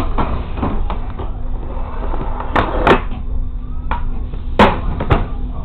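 Railcar at a standstill with its engine idling, a steady low rumble and hum, under a series of sharp knocks and clatters in the cab, two of them louder just past the middle.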